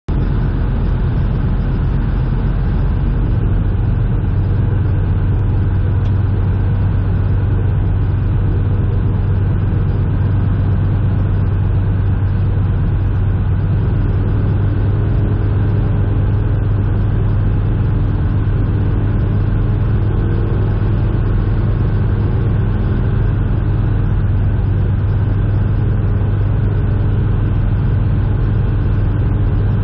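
Tecnam P92 Eaglet ultralight's engine and propeller droning steadily, heard inside the cockpit on final approach. The low drone grows firmer a few seconds in and then holds even.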